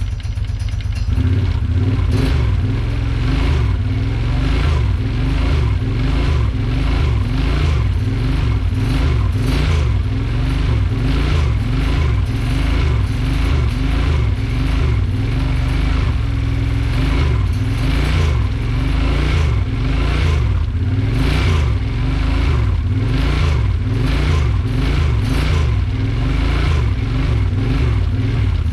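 2008 Kawasaki Brute Force 750's freshly rebuilt V-twin engine running, revved up and down over and over on one of its first start-ups.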